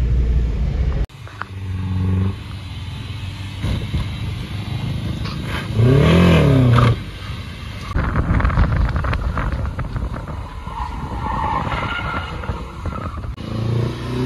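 Renault Clio Mk2 engine fitted with a big cam, heard in short cuts: a steady idle, then a quick rev up and back down about six seconds in, then the car on the move.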